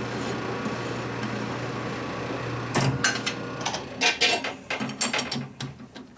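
A machine tool running with a steady hum, which stops about three seconds in. It is followed by sharp metallic clinks and knocks of metal parts and tools being handled.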